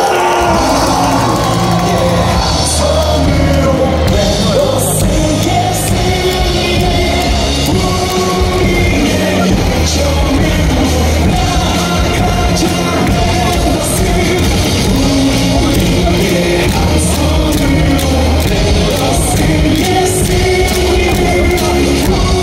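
Baseball cheer song played loud over the stadium loudspeakers, with a cheerleader singing it through a microphone.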